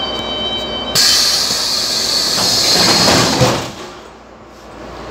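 Athens Metro Line 1 train's sliding doors closing: a steady high warning tone for about a second, then a loud air hiss as the doors run shut, ending in a thud about three and a half seconds in.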